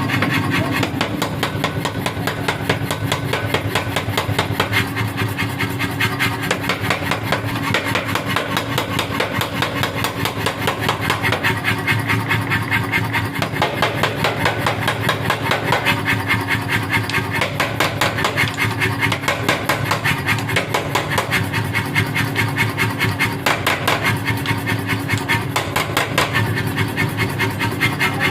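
Power forging hammer striking a hot iron piece in a rapid, even rhythm of blows as it squares the stock, over the steady hum of the machine.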